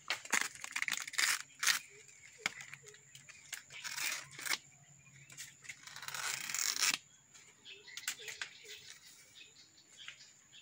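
Irregular snipping, scraping and crackling of a knife and hands working on a kithul palm flower cluster, in short bursts with a longer scrape about six seconds in.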